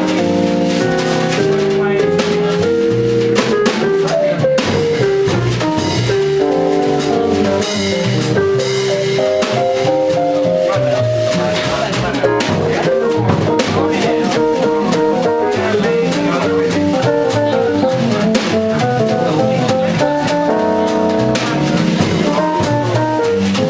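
Live small-group jazz: a stage piano soloing over double bass and a drum kit, the tenor saxophone not playing.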